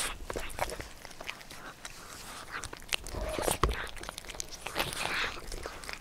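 Two cats eating flaked cooked horse mackerel: irregular wet chewing clicks, smacks and lapping as they chew and lick the fish.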